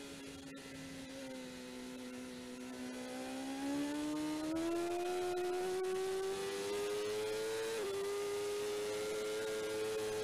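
BMW S1000RR superbike's inline-four engine at racing speed, recorded onboard: the note eases down at first, then climbs steadily from about three seconds in, dips briefly near eight seconds and holds high to the end.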